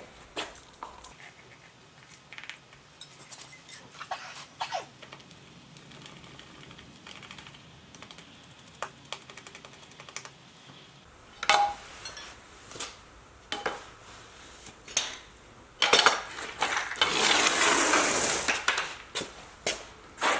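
Metal parts of a pneumatic planishing hammer clinking and knocking as it is handled and set up, with louder knocks about eleven and sixteen seconds in and a loud two-second stretch of rustling noise near the end.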